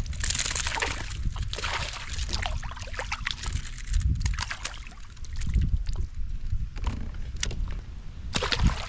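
Water splashing and sloshing beside a kayak as a hooked bass thrashes at the surface while being reeled in and swung aboard, in irregular bursts, with a low wind rumble underneath.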